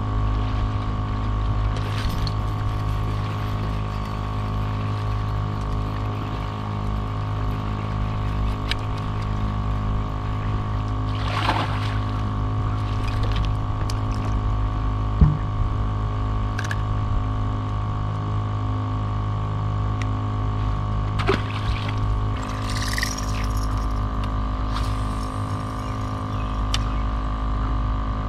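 Steady electric hum of a bow-mounted trolling motor, with water sloshing against the boat's hull. A few brief knocks on the boat, the sharpest about fifteen seconds in.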